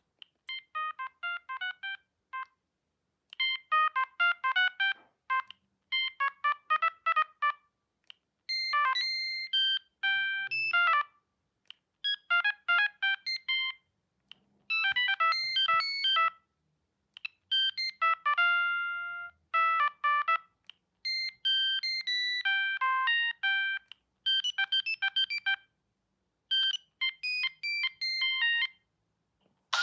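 Siemens C65 mobile phone playing its stock ringtone melodies: short synthesized phrases of quick, beeping notes, each phrase a couple of seconds long with brief silences between them.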